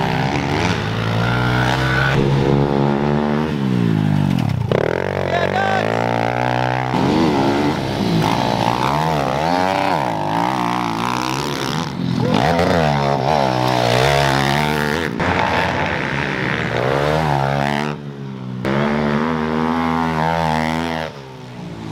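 Four-stroke pit bike engines revving hard as the bikes race past and through corners, the pitch climbing and dropping over and over as riders work the throttle and shift. The sound breaks off abruptly a couple of times near the end.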